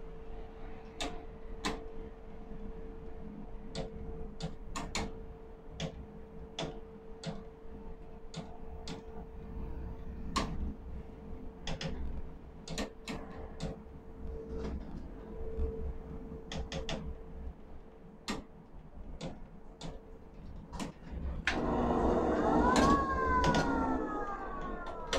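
Steel-mill overhead ladle crane cab: a steady hum and faint tone with many irregular sharp clicks. About 21 seconds in, a louder machine sound starts, with whining tones that rise and then fall.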